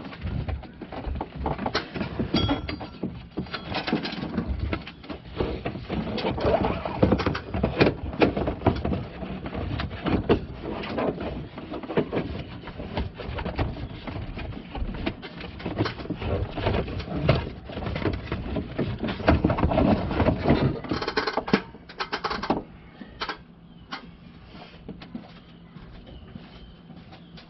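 Serpentine belt being worked off the pulleys by hand. The rubber rubs, rustles and knocks irregularly against the pulleys and fan shroud, then the sound drops to a few faint handling sounds near the end.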